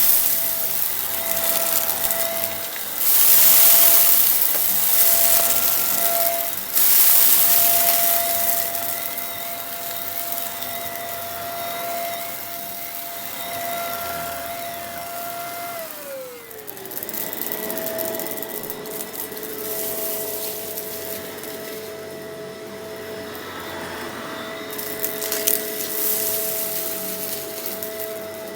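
Shark vacuum cleaner running, a steady motor whine over the hiss of suction, with louder rushes of dirt and dust being sucked up in the first several seconds. About halfway through, the whine's pitch slides down and holds lower.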